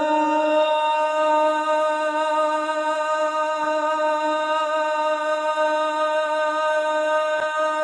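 A man's voice singing the Islamic call to prayer (adhan), holding one long, steady note on the phrase "hayya ala s-salah" (come to prayer).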